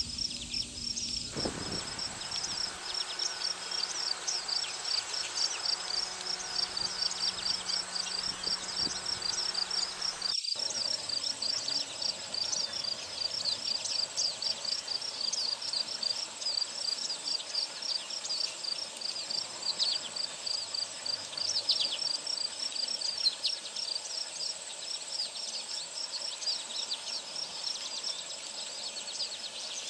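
A steady chorus of high-pitched chirping: a rapid pulsing trill holds throughout, with short downward-sweeping chirps scattered over it.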